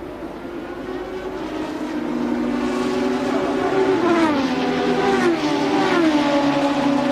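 Formula One race car engine running hard and growing louder. Its pitch drops in quick steps three times in the second half, consistent with gear changes.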